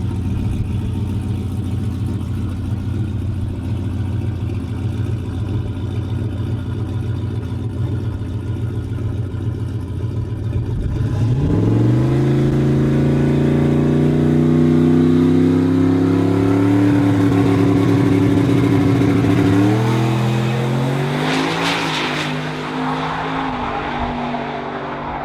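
Drag car engine running at a low, steady rumble, then about eleven seconds in launching and accelerating hard, its pitch climbing steadily, with sudden jumps in pitch near the end as it shifts and pulls away.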